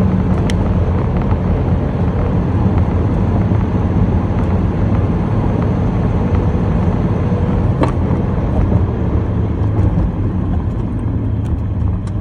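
Car engine and road noise heard from inside the cab while driving: a steady low rumble, with a sharp click about eight seconds in.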